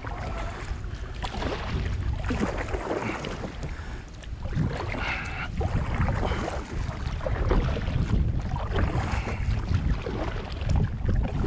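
Wind rumbling on the microphone, with water splashing and lapping irregularly against a kayak on the move.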